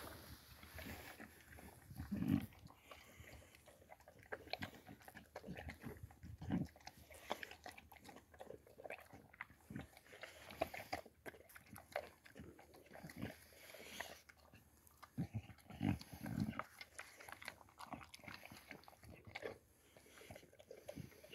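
A Boxer dog eating dry kibble from a steel bowl: irregular crunching and chewing, with a few louder thumps along the way.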